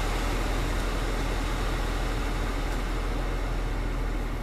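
Climate-control blower of a Maserati Quattroporte running high, a steady rush of air from the dash vents heard inside the cabin, over a low hum.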